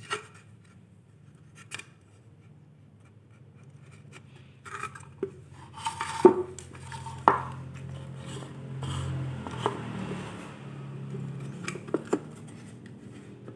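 Scattered knocks and clacks as a small thin-wood speaker box is handled and turned over and a loudspeaker driver is fitted into its front panel, over a steady low hum.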